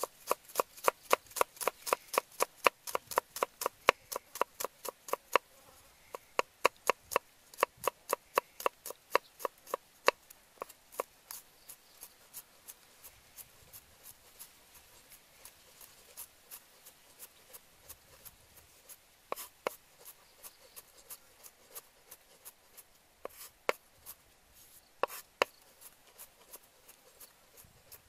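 Broad-bladed knife chopping garlic cloves on a thick round wooden chopping board: quick, even knocks of the blade on the wood, about four a second. After about ten seconds they thin out and grow softer, with a few sharper strikes later on.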